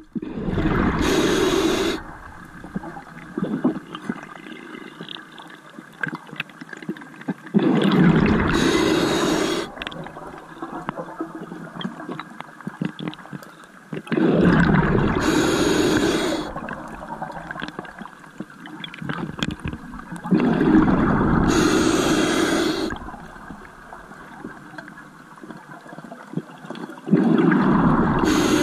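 A scuba diver breathing through a regulator underwater: five bursts of exhaled bubbles, each about two seconds long and roughly six seconds apart, with quieter noise between them.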